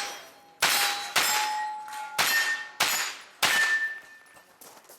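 Pistol-caliber carbine shots, five in about three seconds, each followed by the clear ring of a struck steel target plate; the ringing pitch rises partway through as different plates are hit.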